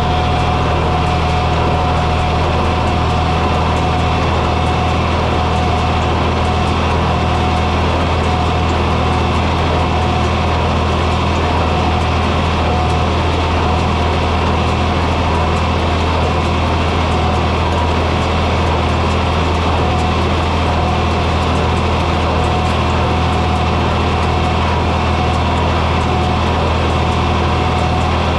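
John Deere 4020 tractor's six-cylinder engine running steadily with no change in pitch, a thin steady whine over the deep engine note.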